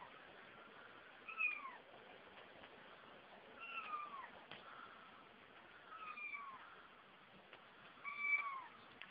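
Kitten meowing four times, about every two seconds, each short call dropping in pitch at the end.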